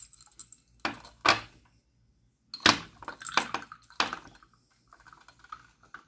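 Small plastic and rubber parts of a washing machine's water inlet valve clinking against a handheld glass jar, as it is handled and the parts go in to soak. About five separate sharp clicks and knocks spread over a few seconds.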